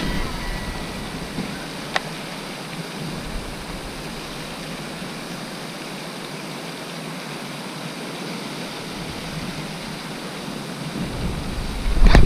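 Steady outdoor hiss, with a single light click about two seconds in; near the end, wind starts buffeting the microphone and grows loud.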